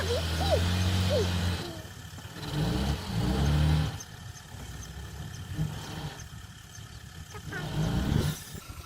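Heavy earthmoving machine's diesel engine running steadily, then revving up and dropping back twice with quieter stretches between.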